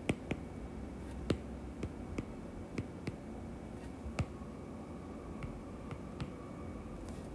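Stylus tip tapping and clicking on a tablet's glass screen during handwriting: faint, sharp clicks at irregular intervals.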